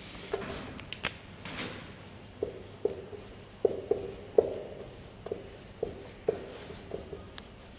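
Marker pen squeaking on a whiteboard in short separate strokes as words are written, with a sharp knock about a second in.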